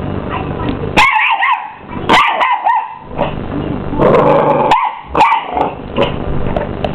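Mini English bull terrier puppy barking in short, high yaps, about five times, squaring up to a vacuum cleaner. A steady low hum sits under the first second.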